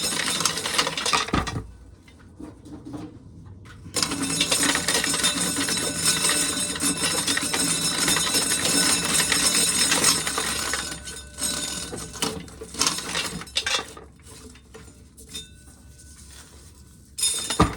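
Dry corn being run through a corn sheller, the shelled kernels rattling and clinking into a pail in two long spells of dense clatter, the second lasting about nine seconds, then tailing off into scattered clicks.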